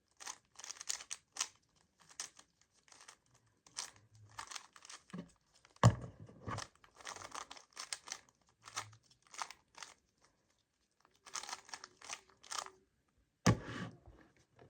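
A plastic puzzle cube being turned quickly by hand during a solve: irregular runs of clicking and scraping as its layers rotate, with a sharper knock about six seconds in.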